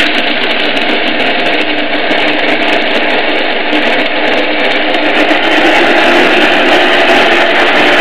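Zepter mixSy hand blender's motor running steadily in its chopper bowl, grinding almonds into crumbs, with a fast rattle of clicks from the nut pieces. It gets slightly louder about five seconds in.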